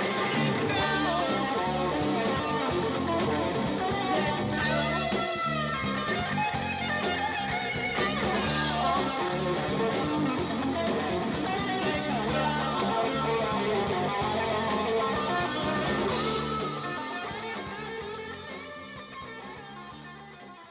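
Guitar music, plucked and strummed with bass underneath, fading out over the last few seconds.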